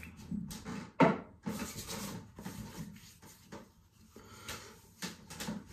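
A hand rubbing and patting over freshly shaved skin of the face and neck, with one sharper slap-like sound about a second in and faint rubbing after it.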